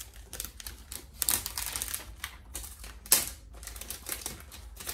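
Protective paper wrap being torn off a new MacBook Pro: a quick run of irregular crackling clicks, with one louder snap about three seconds in.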